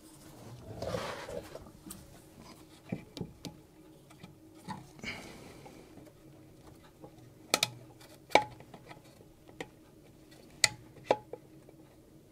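Scattered small clicks and knocks of a hand tool and gloved hands working at a plastic coolant tank's hose connection, with a brief rustle about a second in.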